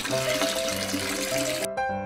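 Liquid pouring and filling a container, a steady rush that cuts off suddenly near the end, over cheerful children's background music.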